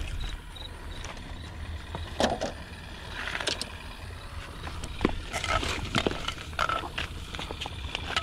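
Wind rumbling on the microphone, with a scattered series of short knocks and rustles from a fishing rod and landing net being handled.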